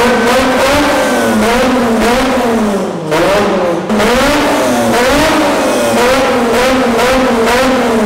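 Nissan 350Z V6 engine revved in repeated blips, its pitch rising and falling about once a second.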